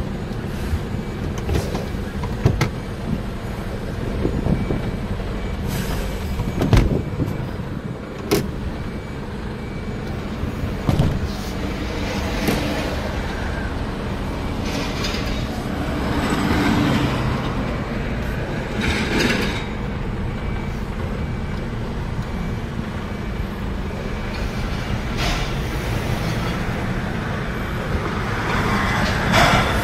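Heavy truck engine running with a steady low rumble, broken by several sharp clicks or knocks and a few short bursts of air hiss.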